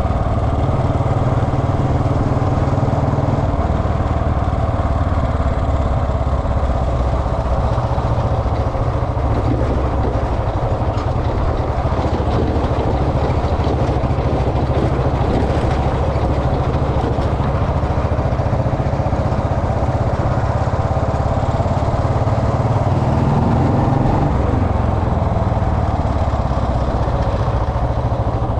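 Royal Enfield Bullet Electra's single-cylinder engine running continuously, its low note changing a few times as the revs shift.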